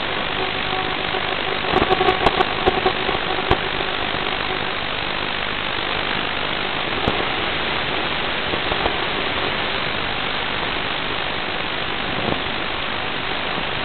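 Steady static hiss from an FPV video receiver's empty audio channel, with a few faint clicks and short hums about two to three and a half seconds in.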